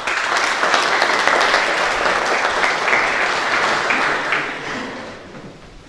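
Audience applauding, breaking out at once and fading away over the last second or so.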